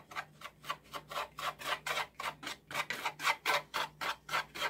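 Wire whisk stirring a dry flour-and-brown-sugar mix in a mixing bowl to break up sugar clumps: a steady run of short scratchy strokes, about four a second.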